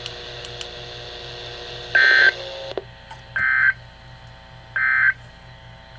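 Three short, buzzy NOAA Weather Radio SAME digital data bursts, about a second and a half apart: the end-of-message code that closes the Emergency Alert System required weekly test. They ring out over a steady radio hum.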